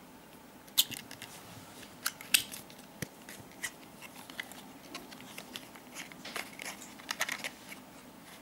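Cardboard playing-card box being handled and opened: irregular sharp clicks and light crackles of card stock as the flaps and sleeve are worked, the loudest clicks about a second and two seconds in.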